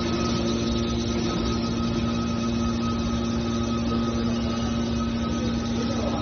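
Hydraulic power unit of a metal baler running steadily, a constant pump and motor hum.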